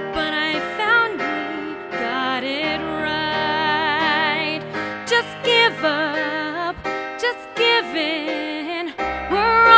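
A woman singing with vibrato on long held notes, accompanying herself on an electric keyboard with a piano sound.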